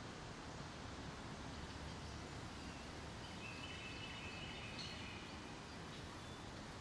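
Faint, steady outdoor ambience, with a few faint, high bird chirps about halfway through.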